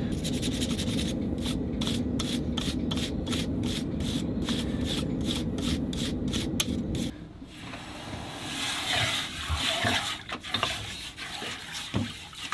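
Brisk brushing strokes, about three or four a second, scrubbing a hot hammer-textured steel plate on the anvil over a steady hum that stops about seven seconds in. Then a hiss as the hot plate is quenched in a bucket of water, with a few clicks of tongs near the end.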